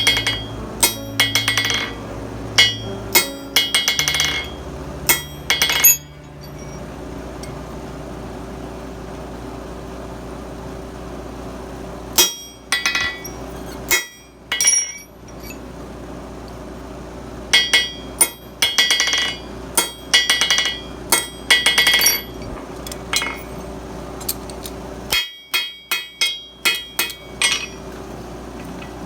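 Blacksmith's hammer striking hot steel on an anvil in quick runs of ringing blows, four groups with pauses between, over a steady hum.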